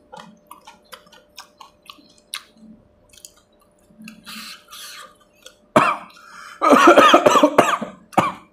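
A man chewing crisp pani puri stuffed with green chillies, with soft crunchy clicks, then a hissing breath and loud coughing in bursts over the last few seconds, his reaction to the chilli heat.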